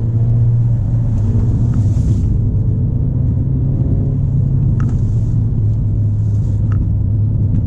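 Ford Fiesta ST being driven, its engine running at a steady speed with a low, even drone.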